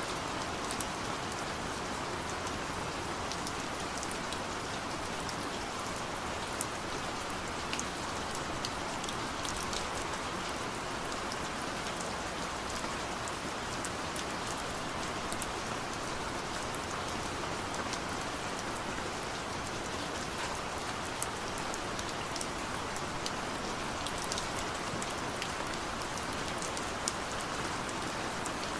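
Steady rain falling, an even hiss with many small, sharp drop ticks scattered throughout.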